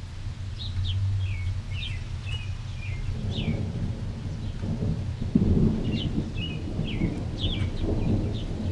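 Distant thunder rumbling, building about three seconds in and loudest around the middle before fading, while small birds chirp throughout.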